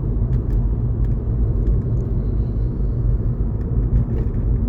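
Steady low rumble of a car's engine and tyres heard from inside the cabin while driving along.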